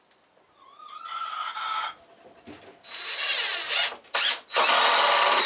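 Power drill driving screws into pallet wood in four bursts, each louder than the last, the final one the longest and loudest.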